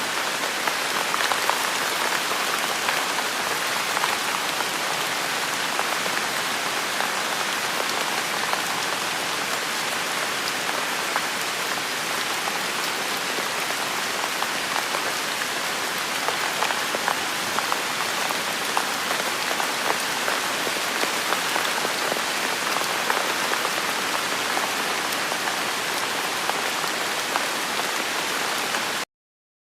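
Steady rain falling: a dense, even hiss with scattered sharp drop ticks. It cuts off abruptly just before the end.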